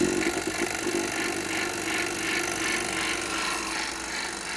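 Vacuum pump of a wiped film distillation unit, just switched on and running: a loud, steady mechanical noise with a fast, even pulsing.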